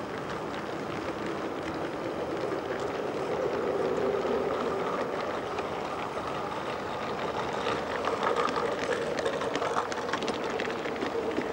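Model garden-railway train rolling past on its track: a steady running rumble, a bit louder around the middle and again near the end, with many light clicks from the wheels on the rails.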